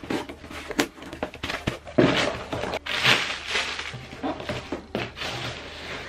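Scissors snipping and slitting the packing tape on a cardboard box in a series of short clicks. From about two seconds in, the cardboard flaps are pulled open and the box is handled, with louder scraping and rustling of cardboard.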